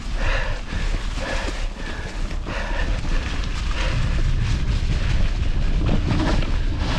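Wind buffeting the microphone during a mountain bike ride, a steady low rumble, with a fainter hiss that comes and goes about once a second in the first few seconds.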